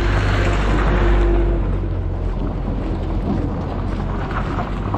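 A JMC light truck's engine running as it passes close by on a gravel road, over a heavy low rumble of wind on the microphone; the truck noise eases off after about a second and a half.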